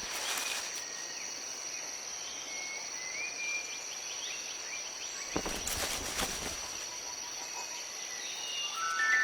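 Tropical forest ambience: a steady high-pitched insect drone with scattered short bird chirps. About five and a half seconds in, a rustling crackle lasts about a second; near the end, soft chime-like music notes enter, stacking up into a chord.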